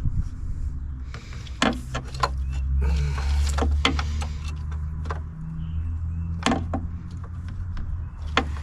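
A wrench clicking and tapping against metal as it works at the ICP sensor on a 6.0 Power Stroke diesel engine: about half a dozen sharp, scattered clicks over a steady low rumble.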